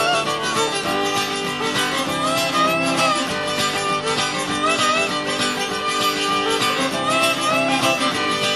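Cajun music: fiddle and guitar playing together.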